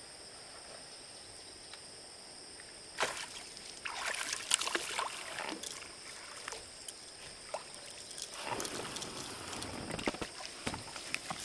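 Water splashing and sloshing in irregular bursts, starting about three seconds in and coming again near the end, over a steady high-pitched whine.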